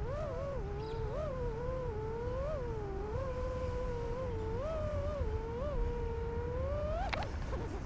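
FPV quadcopter's brushless motors whining, the pitch wavering up and down as the throttle changes. A sharp click and a quick rise in pitch come near the end.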